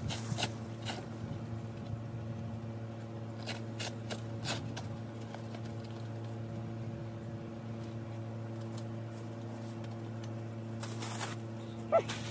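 A steady low hum made of several evenly spaced tones, with scattered light clicks and rustles over it.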